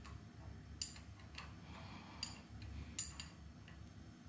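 A wrench clinking against a small metal oil-line fitting while it is tightened, a few sharp separate clicks with the loudest about three seconds in.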